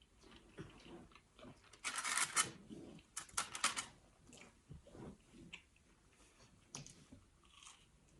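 Crispy fried food being bitten and chewed close to the microphone: two loud crunching bursts, about two seconds in and again about three and a half seconds in, with quieter chewing and mouth sounds around them.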